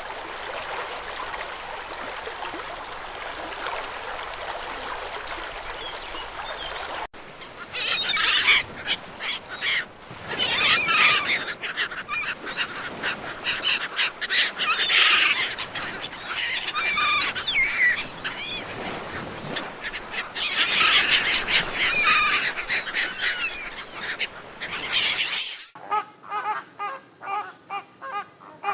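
Running water for about the first seven seconds, then an abrupt change to loud bird calls: many quick, squawking calls in dense bursts. Near the end it changes again to a different, evenly repeated call.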